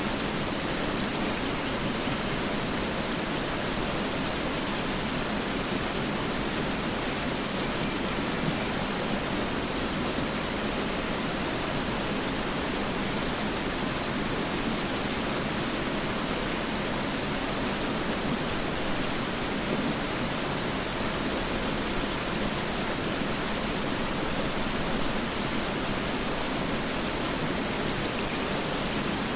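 Mountain river rushing steadily, a constant dense roar of flowing water with no breaks.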